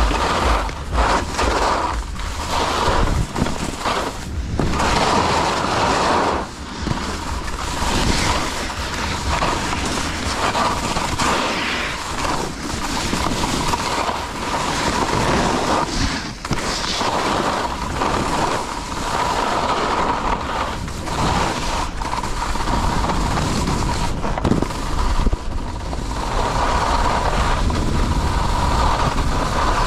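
Wind rushing and buffeting over the microphone during a downhill ski run, with skis scraping over the snow; the noise swells and eases in gusts.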